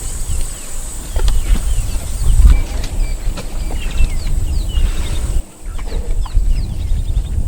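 Wild birds calling with many quick chirps and whistles over a loud, uneven low rumble.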